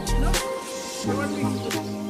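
Background music with a beat: a hip-hop style track with sliding bass notes and regular clicking percussion.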